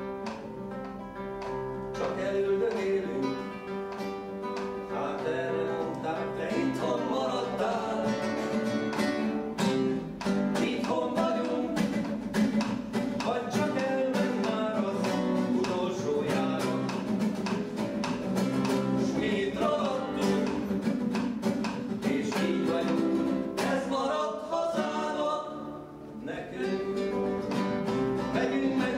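Acoustic guitar music: quick runs of plucked notes, with a brief lull near the end.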